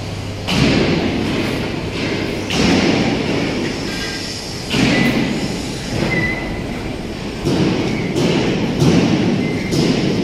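Irregular heavy bangs and thuds of steel being worked in a fabrication workshop, about one every second or so, each followed by a rumbling echo from the large hall.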